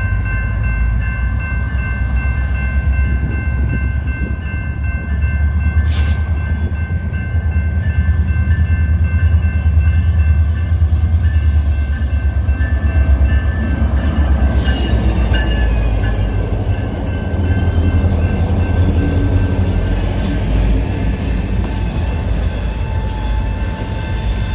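BNSF diesel locomotive with a heavy, steady engine rumble as it pulls a freight train over a grade crossing, with steady high warning tones from the crossing signals through the first half. Near the end the freight cars roll past with a faint regular clicking.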